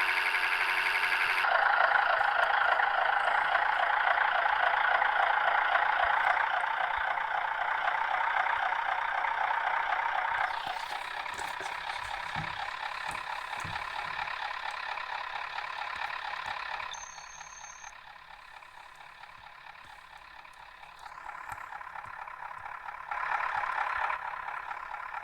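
MAZ-105 bus under way, its engine and drivetrain noise heard from inside. The noise changes level in abrupt steps several times and is quietest for a few seconds about two-thirds of the way through, with a brief high beep as it drops.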